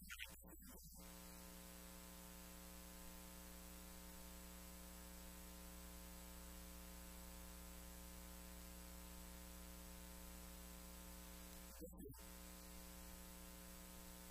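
Near silence: a steady electrical mains hum with hiss, and short faint sounds near the start and again about twelve seconds in.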